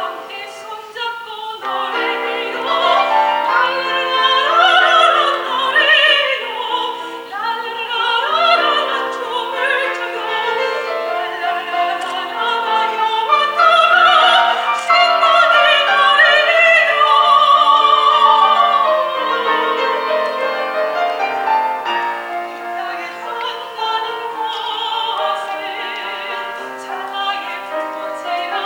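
A soprano sings a Korean art song in classical operatic style with wide vibrato, accompanied by piano. The voice swells loudest in the middle, with a long held note.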